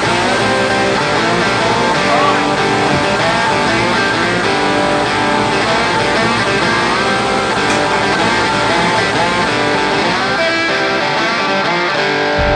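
Background music led by guitar, playing steadily throughout.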